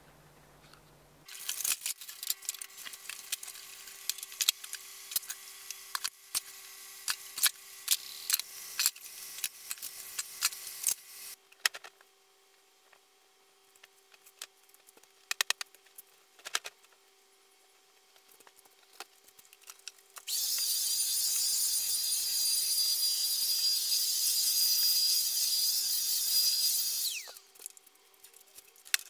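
Rustling and clicking as pillows and bedding are handled and shaken out. Later an electric motor runs with a steady hiss for about seven seconds, then winds down with a falling pitch.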